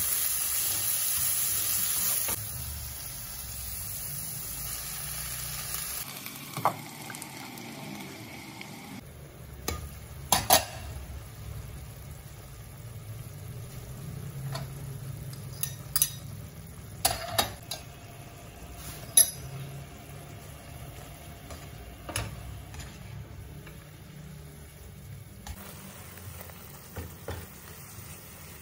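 Tofu sizzling in oil in a non-stick wok as it is stirred with a spatula, loudest at the start, then greens and tofu cooking more quietly in a little liquid. Several sharp knocks of the spatula against the pan are heard in the middle stretch.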